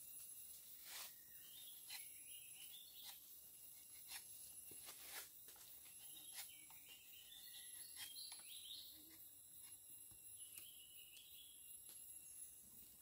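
Faint forest ambience: a steady high insect drone with short bird chirps, and a few scattered soft clicks and scrapes.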